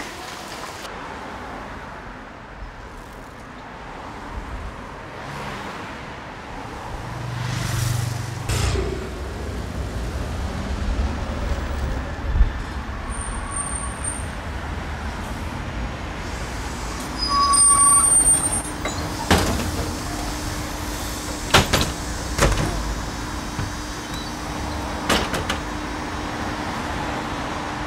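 Motor vehicle noise: a steady low rumble with a hiss over it, two short high beeps partway through, and several sharp clicks near the end.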